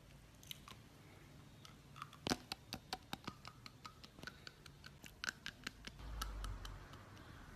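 Teeth biting and chewing on a wooden pencil: a quiet run of small sharp clicks, about five a second, starting about two seconds in, then a short low rumble.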